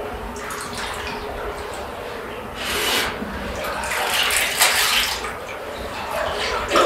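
Water splashing and sloshing around the legs of a person wading through the water of a flooded cave, louder in surges about three seconds in and again around four to five seconds in.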